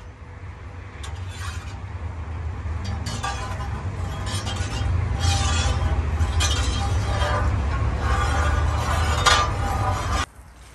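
Long metal ladle stirring a large cauldron of boiling water, clinking and scraping against the pot in a string of short strokes over a steady low rumble. The sound drops off abruptly near the end.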